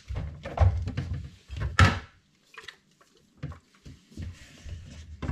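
Knocks, clinks and rustles of containers being handled on refrigerator door shelves, with low bumps through the fridge door. The sharpest knock comes about two seconds in.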